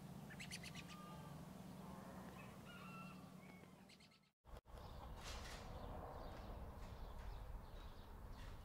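Faint outdoor ambience with scattered bird chirps and short calls over a steady low hum. The sound cuts out sharply for a moment a little past halfway, then returns as a fuller open-air hiss with more chirps.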